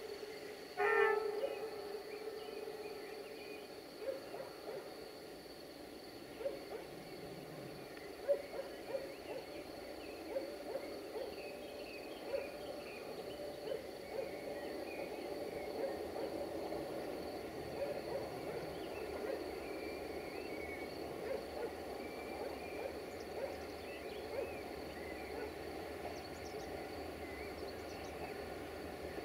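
Birds calling in open country: a low note repeated many times, with scattered higher chirps. A brief loud tone sounds about a second in.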